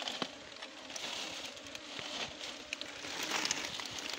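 Honeybee swarm clustered on a stick, a soft hiss of wings with a faint low hum. Small clicks and crackles of dry leaves are scattered through it.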